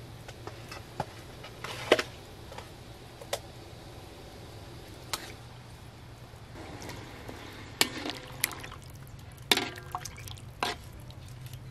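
Metal ladle stirring and splashing hot vinegar broth with fish pieces in a steel wok. Sharp clinks of the ladle against the wok come every second or so, over the sloshing and pouring of the liquid.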